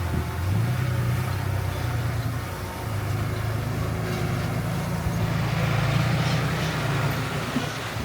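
Diesel engine of heavy earthmoving machinery running, its low note shifting a little as it works. A rough rasping noise is added from about five seconds in.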